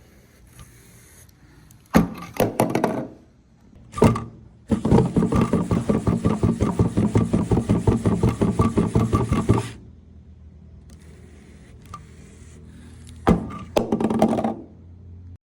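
UGOT spider robot's leg servos whirring as it walks, its feet tapping in a steady rhythm of about five steps a second for some five seconds. A few sharp knocks come before, and a shorter burst of servo noise near the end.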